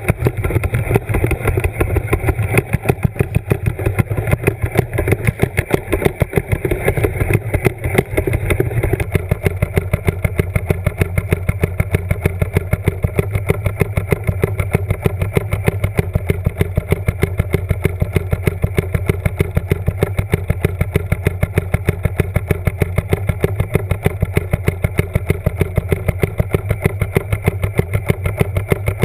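A motor heard underwater: a steady low hum with a fast, even pulse of about five ticks a second. A rougher rushing layer sits over it for the first nine seconds or so, then drops away.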